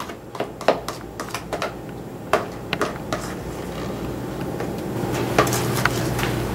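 A plastic spatula scraping and tapping against a stainless steel mixing bowl in a run of light, irregular clicks as soft cheesecake filling is scraped out. About four seconds in, a low steady hum rises underneath.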